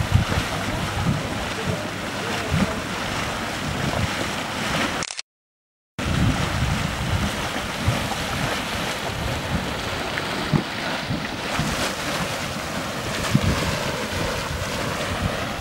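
Steady rushing, churning noise from a steaming grey mud pot, mixed with wind buffeting the microphone. The sound drops out completely for about a second roughly five seconds in.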